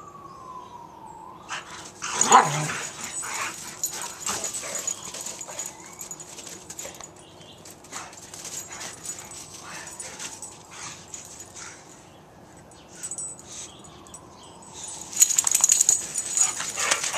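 Boxer dogs at play: thin, drawn-out whines that fall slowly in pitch, and one short loud bark about two seconds in. Near the end comes a burst of rough scuffling noise as the dogs tussle close by.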